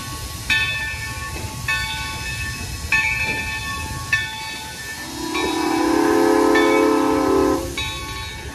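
Valley Railroad steam locomotive No. 3025 departing, its bell ringing steadily at about one stroke a second. About five seconds in comes one long chime-whistle blast of two to three seconds, over a low rumble of the moving train.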